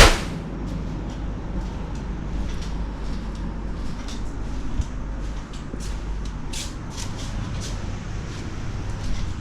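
Steady low hum of an indoor room, with a few faint light clicks and ticks partway through.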